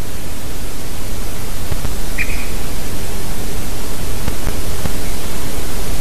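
A single short call of a great spotted woodpecker about two seconds in, over a loud steady rushing noise of wind on the microphone.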